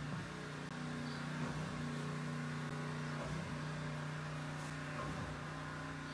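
A pressure washer (water blaster) running, a steady machine hum with a hiss over it.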